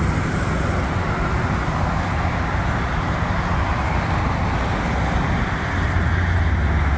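Steady road traffic: cars and a bus passing on a busy multi-lane road, a continuous rush of tyres and engines.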